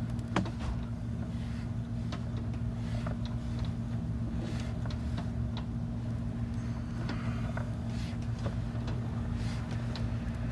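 Sewer inspection camera rig running as the camera is pushed through the line: a steady low hum with scattered light clicks and taps.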